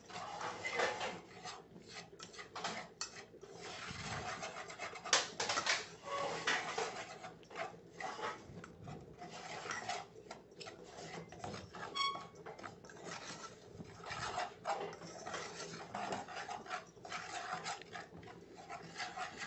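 Metal spoon scraping and stirring dry manioc flour toasting into farofa in a metal saucepan: a continuous gritty rubbing with many small scrapes and clinks against the pan.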